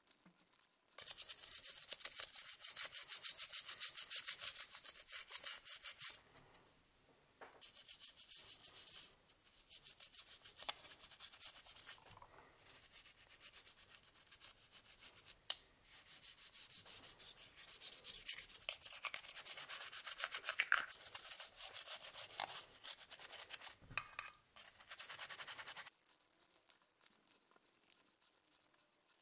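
A toothbrush scrubbing the wet plastic housing of a Siemens A40 mobile phone in soapy water, a rapid scratchy back-and-forth rubbing. It is strongest in the first few seconds, then goes on more lightly with short pauses and stops near the end.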